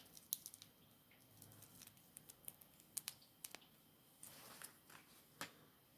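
Faint scattered clicks and brief rustles of a wristwatch and its packaging being handled.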